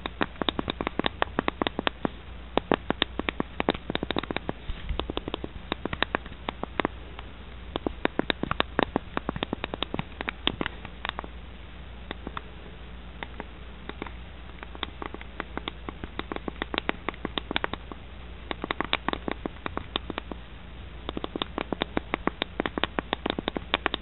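Quick, uneven clicking of keys on a small ultra-thin Bluetooth keyboard built into an iPhone case, as someone types, easing off for a moment about halfway through.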